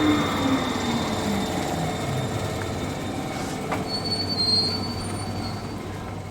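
Train running on rails, its tones sliding down in pitch, with a thin high wheel squeal about four seconds in. The sound gradually fades toward the end.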